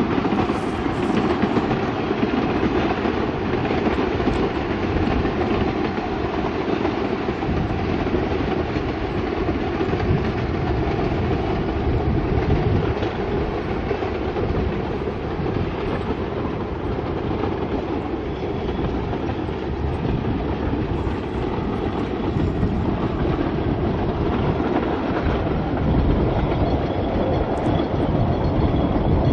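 Narrow-gauge double Fairlie steam locomotive hauling coaches, a steady, continuous running rumble of the train on the track.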